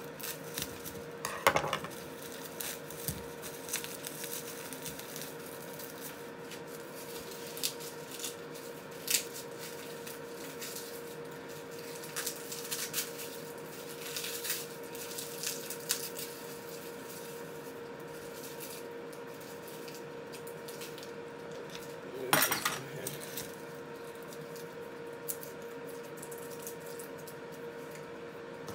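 Irregular clinks and knocks of kitchen utensils and dishes handled on a worktop, the loudest clatter about a second and a half in and another around twenty-two seconds in. Under them runs the steady hum of an air fryer.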